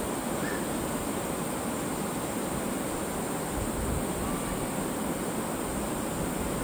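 Ocean surf washing onto a beach: a steady, even rush of waves with no single breaker standing out.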